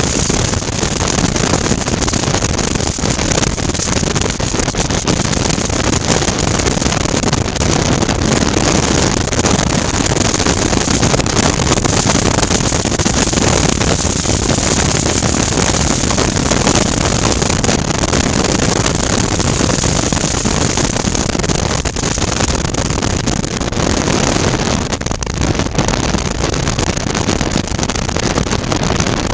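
Steady wind rush over a helmet-mounted microphone at road speed, mixed with the 2019 Suzuki V-Strom 650's V-twin engine running at an even cruise.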